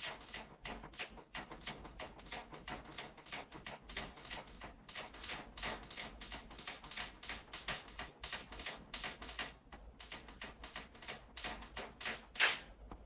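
Rapid, irregular light tapping, about four taps a second, with one louder tap near the end, after which it stops.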